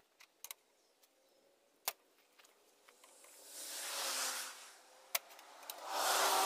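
A few light clicks of handling, then steel flat bar scraping and rubbing against the die of a hand-operated iron bender, twice: a softer scrape a little after the middle, and a louder grinding scrape with a squeak in it near the end as the bar is bent.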